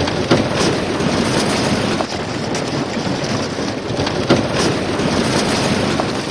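Tractor engines running steadily, with occasional knocks and clatter.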